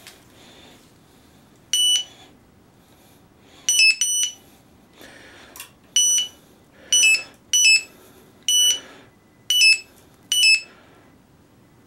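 Electronic carp bite alarm beeping in short, irregular bursts, about ten beeps, as a carp takes the bait and pulls line.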